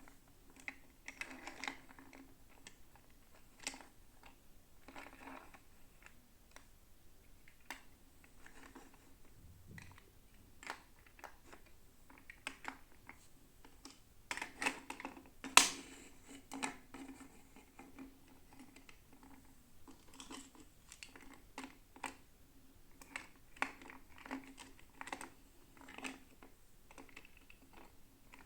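Hands handling plastic toy packaging and small doll pieces: irregular light clicks, taps and brief rustles, with a sharper click about halfway through.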